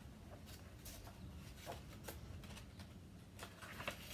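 Faint rustling and soft clicks of a large picture book's paper pages being turned and handled, over a low steady background hum.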